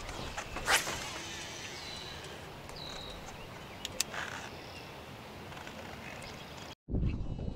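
A few sharp knocks and clicks over a steady outdoor background, with a short high bird chirp about three seconds in; the sound cuts out abruptly near the end.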